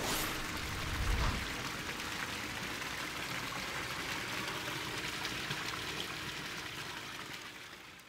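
Sheer descent waterfalls pouring into a swimming pool: a steady splashing rush of water that fades out near the end. A brief whoosh at the start and a low thump about a second in.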